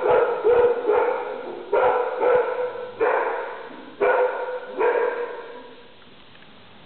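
A kennelled dog barking repeatedly, about seven barks in the first five seconds, each with a short echo off the tiled walls, then falling quiet for the last second or two.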